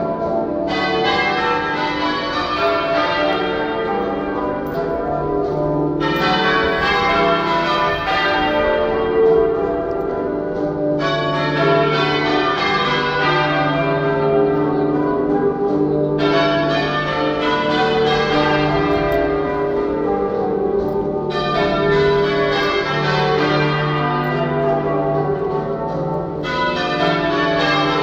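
Church bells change ringing half-muffled, one stroke of each bell clear and the other muffled, so the peal brightens and dulls by turns about every five seconds.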